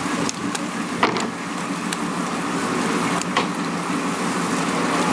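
Water hose spraying onto fish laid out on a wooden dock: a steady hiss, with a low hum beneath it and a few light knocks.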